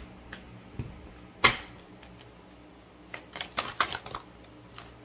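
Oracle cards being handled, with a sharp tap about a second and a half in, then a quick run of light clicks and flicks between about three and four seconds in.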